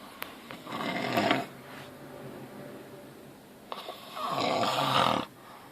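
A man snoring in his sleep: two snores about three seconds apart, the second one longer.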